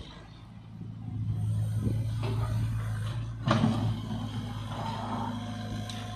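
Komatsu PC75UU mini excavator's diesel engine running under hydraulic load, getting louder about a second in as the arm swings and the bucket works into loose soil. A sharp knock sounds about three and a half seconds in.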